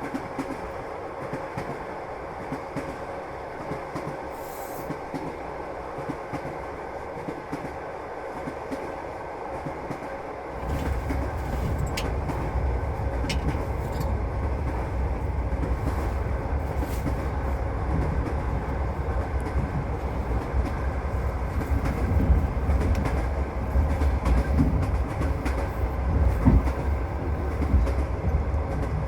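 Passenger train running along the track, heard from inside the carriage: steady wheel and rail noise with occasional clicks. About ten seconds in, a deep rumble suddenly gets louder and stays louder.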